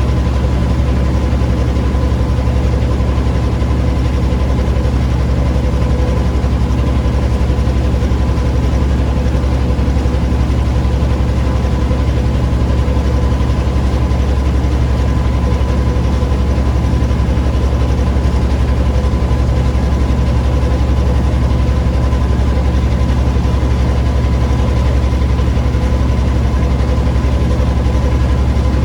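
An engine running steadily with a deep, unchanging drone and a faint steady whine above it.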